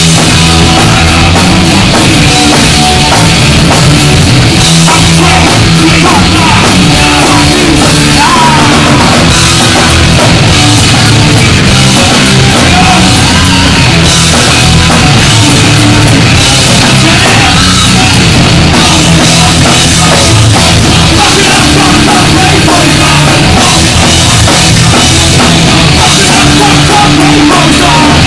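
Punk band playing live and loud: distorted electric guitar, bass and a pounding drum kit, with a singer shouting into the microphone.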